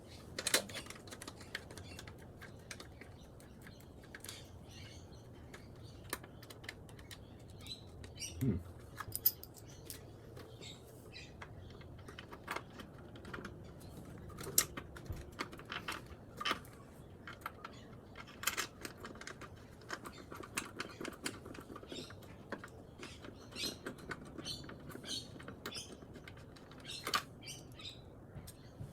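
Scattered light clicks and taps of hand tools and small engine parts being handled, with a duller knock about eight and a half seconds in.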